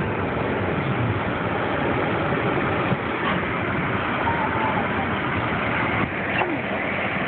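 Car engine running in first gear with the drive wheels spinning in deep snow, the car stuck and not moving: a steady, unbroken noise.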